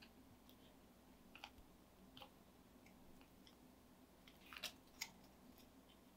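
Near silence with faint, scattered crinkles and ticks of a cardstock paper butterfly being handled and pressed between fingers; a few louder crackles come about four and a half to five seconds in.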